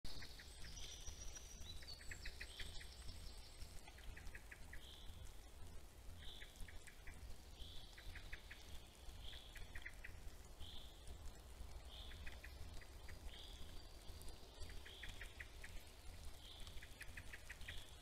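Songbirds singing, the same short phrase over and over: a quick rattling run of notes ending in a higher note, about every second or two, with a few higher whistled notes near the start. A low steady rumble runs underneath.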